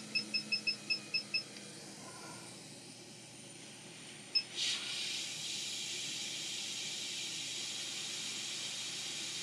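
Hot air rework station: a quick run of about eight short beeps as its airflow is stepped down to around 40%, one more beep about four seconds in, then a steady hiss of hot air from the nozzle. The airflow is turned down so the small diode being resoldered is not blown off its pads.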